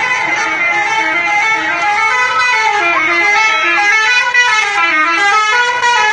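Telolet horn on a bus: a multi-tone musical horn playing a tune of stepped notes, several pitches sounding together.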